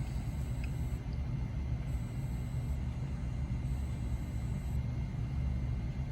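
Steady low electrical hum and rumble, with a few faint steady high tones above it.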